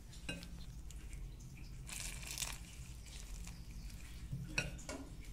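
Silicone spatula stirring and scraping rice flour being mixed with hot water in a bowl: soft, intermittent crumbly scrapes and rustles, a few strokes a couple of seconds apart, over a faint low hum.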